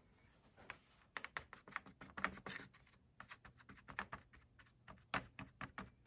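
Foam sponge brush dabbing paint onto a thin laser-cut birch wood panel in an aluminium foil pan: a quick run of faint, irregular light taps and ticks, with a short pause about three seconds in.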